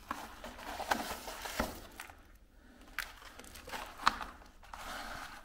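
Old books and papers being handled: paper rustling, with a few sharp taps and clicks, the loudest about four seconds in.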